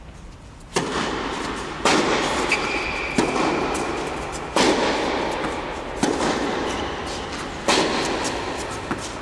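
Tennis ball hit back and forth with racquets in a rally: six sharp strikes about every second and a half, each ringing on in the echo of a large indoor tennis hall.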